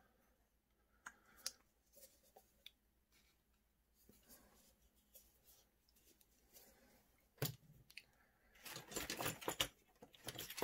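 Quiet handling of a small plastic cup and rosin bottle on a workbench: a few light clicks, a sharper knock about seven and a half seconds in, then a second or so of rustling and scraping.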